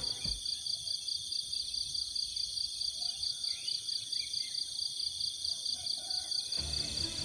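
Forest insects trilling steadily, a high-pitched rapid pulsing buzz with a few faint chirps. Music comes back in near the end.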